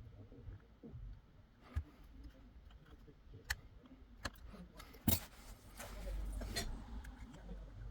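About five sharp, scattered clicks and taps of small hard parts or tools being handled during a TV repair, the loudest about five seconds in, over a faint low hum.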